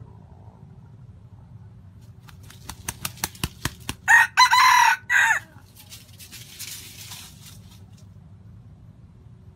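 A red junglefowl rooster crows once, a short crow in three parts about four seconds in. Just before it comes a quick run of about eight sharp claps.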